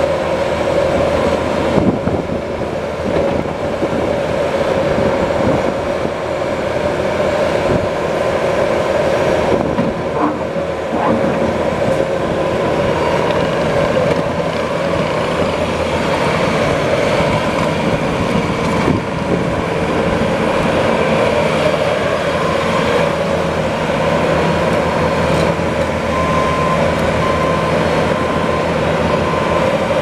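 Bobcat T740 compact track loader's diesel engine running steadily under load as the machine drives and turns on gravel, with the rumble and clatter of its tracks. A steady high hum runs through it the whole time.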